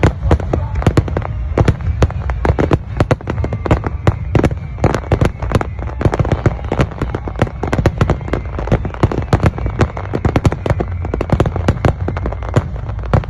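Aerial fireworks bursting in a rapid barrage: many sharp bangs and crackles a second over a continuous low rumble.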